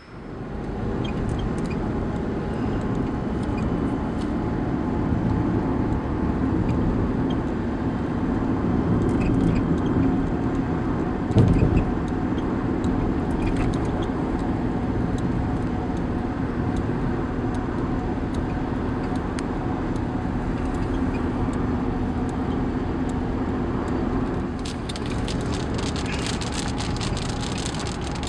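Steady low rumbling noise of a passing thunderstorm, with a brief louder rumble about eleven seconds in and rain beginning to patter near the end.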